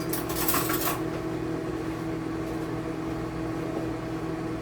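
A steady background hum with a constant tone, the unwanted noise that runs under this recording, with a brief rustling scrape in the first second.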